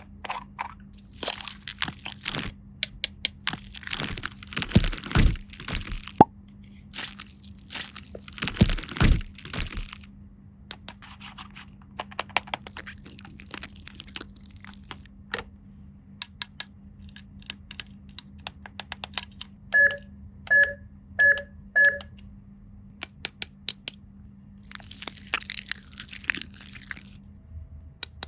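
Plastic toy pieces and packaging handled up close: many small clicks and taps, with stretches of crinkling plastic. About two-thirds of the way through, four short electronic beeps.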